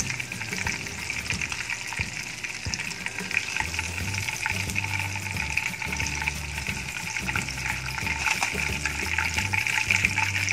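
Breaded pieces deep-frying in hot oil in a small wok: a steady sizzle full of small pops and crackles while tongs turn the pieces in the oil.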